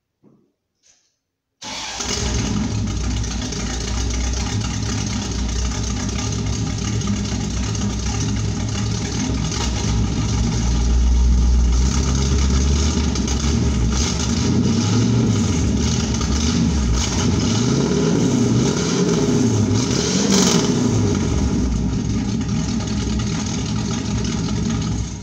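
1972 Pontiac Firebird Trans Am's V8 starting up about two seconds in and running very loud through a blown-out muffler. It is cold and has no choke, so the throttle is feathered and the revs rise and fall in the second half. The sound cuts off suddenly at the very end.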